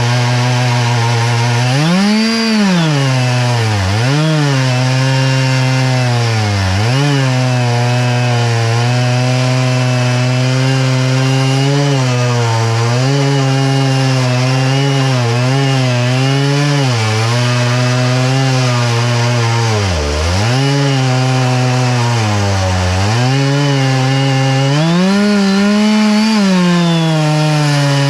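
Stihl chainsaw on an Alaskan chainsaw mill ripping through an oak log, running at high speed under load. Its pitch drops sharply several times as the engine bogs in the cut, then recovers.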